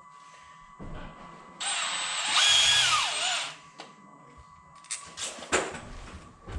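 Power drill running for about two seconds, its pitch dipping and rising before it stops, as it drives a fastener for a pipe clamp into the wall. A few short knocks follow.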